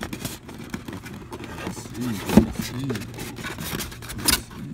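A styrofoam packing insert being handled and turned over, rubbing and scraping, with a sharp knock about halfway through and another near the end.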